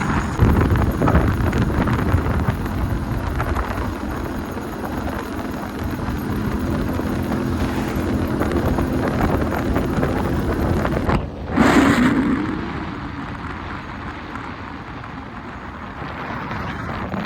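A vehicle driving along a road, its running and road noise mixed with wind buffeting the microphone. About eleven seconds in the sound breaks off for a moment, then a short, louder rush of noise follows.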